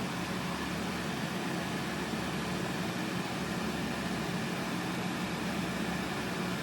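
Batuk frying in a pan of hot oil: a steady, even sizzle with a low steady hum underneath.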